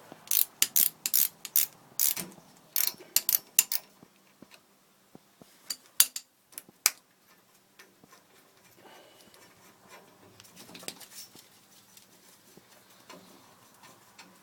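Sharp metallic clicks and clinks of hand tools working on a refrigeration compressor while its suction valve is taken off. They come in quick irregular runs for the first few seconds, then a few louder single clicks, then only faint handling.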